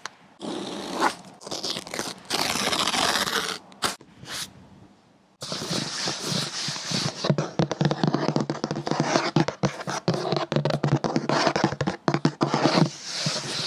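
White paperboard laptop box being opened: cardboard scraping and rustling for about three seconds as the lid comes off, then a brief pause. After that comes fast fingernail tapping and scratching on the inside of the empty cardboard lid.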